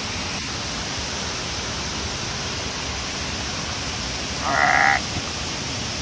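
Steady rushing of a waterfall. About four and a half seconds in, a short high-pitched call lasts about half a second.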